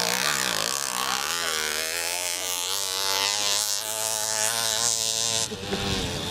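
Motocross motorcycle engine running, its pitch rising and falling as it is revved.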